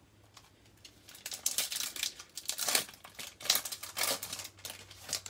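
Foil wrapper of a baseball card pack crinkling and tearing as gloved hands rip it open. It is a rapid run of crackles that starts about a second in and stops near the end.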